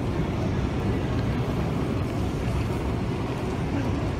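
Airport terminal ambience: a steady low rumble of the busy hall, with no distinct events standing out.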